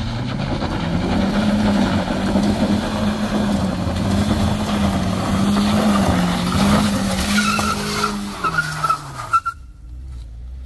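Small front-wheel-drive MPV's engine revving hard and held high under load while its front tyres spin and scrabble on loose gravel, losing traction on a steep climb. Short tyre squeals come near the end, and the sound cuts off abruptly.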